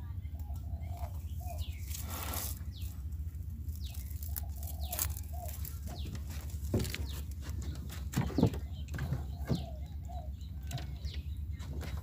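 Wire-mesh crab trap being handled on a wooden boat: scattered rattles, clicks and knocks, the loudest a little past the middle, over a steady low rumble.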